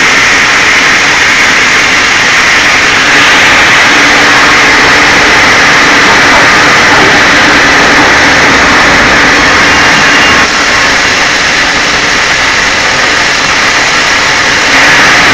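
Log carriage band saw running loud and steady, its blade cutting through a squared log as the carriage feeds it. The sound drops slightly about ten seconds in and picks up again near the end.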